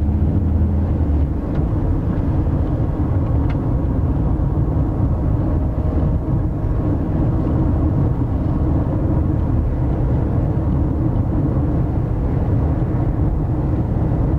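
Road noise inside a moving car: a steady low rumble of engine and tyres.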